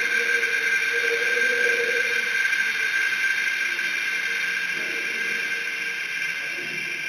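Abstract sound-art drone: steady high held tones over a hiss, with a lower tone wavering underneath, slowly growing quieter.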